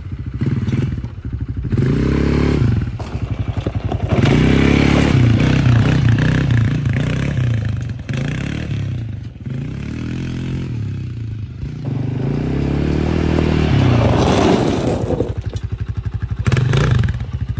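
Arctic Cat DVX 250 quad's single-cylinder four-stroke engine revving up and falling back several times as it is ridden, with gravel scraping and clattering under the tyres.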